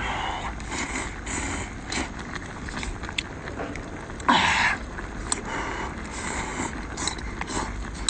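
Slurping hot seafood soup noodles from a bowl and chewing, with one loud slurp a little past four seconds in.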